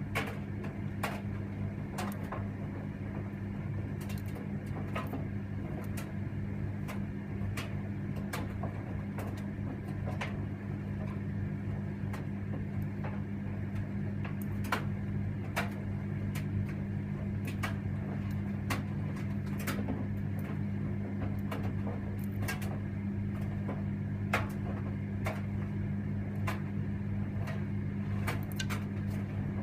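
Electra vented tumble dryer running: a steady motor hum with irregular light clicks and knocks as the washing tumbles in the drum.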